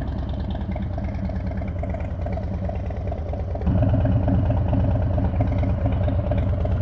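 Harley-Davidson Milwaukee-Eight 117 V-twin idling through a freshly installed SP Concepts Big Bore 4.5 exhaust, a steady low note that gets fuller and louder a little past halfway.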